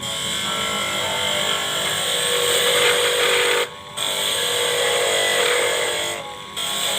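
Lathe tool cutting into a spinning workpiece, slicing off thin parts: a steady loud hiss of the cut with faint steady tones. It cuts out briefly twice, about four seconds in and near the end.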